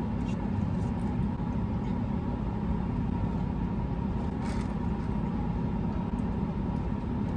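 Steady road and engine noise heard inside a moving car's cabin, a low, even rumble.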